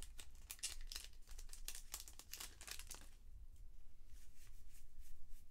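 Baseball trading cards handled: a rapid run of crisp crinkling flicks as the cards are slid and thumbed through one by one, thinning to a few fainter flicks after about three seconds.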